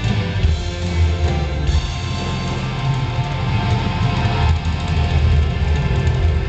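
Rock band playing a loud instrumental passage, with electric guitar and drum kit.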